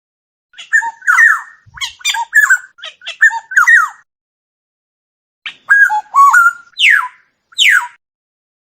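Oriole song: a bout of rapid fluty whistled notes with sliding pitch and a few harsher notes, then after a pause of about a second and a half a second bout ending in two harsh downward-sweeping calls. There is no background noise between the phrases.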